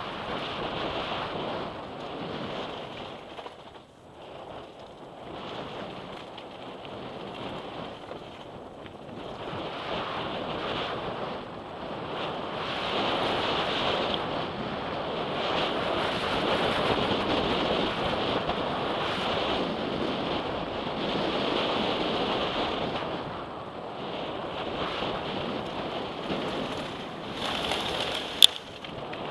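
Wind rushing over the microphone and mountain bike tyres rumbling on a dirt and gravel downhill trail. The noise swells and fades with speed, and a single sharp knock comes about a second before the end.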